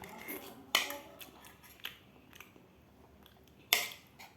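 Close-up chewing and biting of food, with two louder sharp sounds, one about a second in and one near the end.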